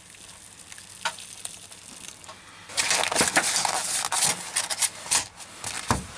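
Boiling water poured quietly from an electric kettle into an instant-noodle tub, then the tub's thin plastic lid crackling and clicking loudly as it is pressed shut. A few dull knocks come near the end.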